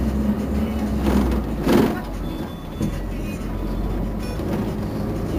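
Otokar Navigo T midibus engine idling steadily at a stop, with a short burst of hiss about a second and a half in.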